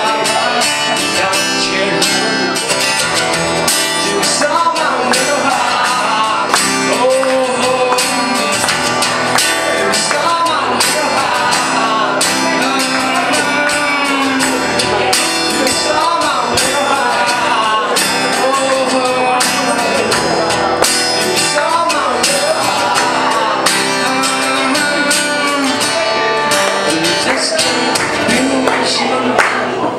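A man singing into a microphone while strumming a cutaway acoustic guitar, a continuous live song with a steady strummed rhythm.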